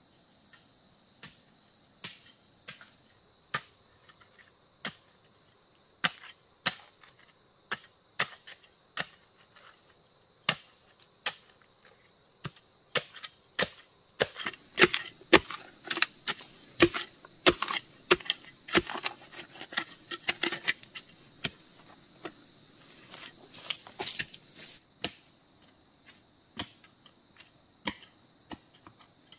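Repeated sharp chopping strikes on bamboo. They come every half second or so at first, turn rapid and dense for about ten seconds in the middle, then slow again. A steady high insect drone runs behind.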